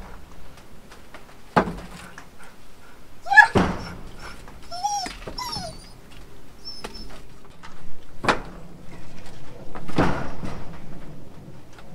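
Split firewood knocking as pieces are set and pushed into a stack, several separate wooden knocks. A dog whines briefly, a few short wavering cries about three and a half to five and a half seconds in.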